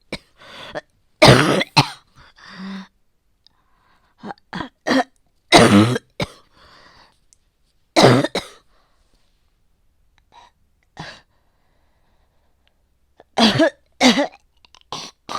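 A person coughing hard in about four fits, with smaller coughs and throat clearing between them. It is a chesty cough from a worsening respiratory infection with heavy yellow-green phlegm, tagged as asthma and bronchitis.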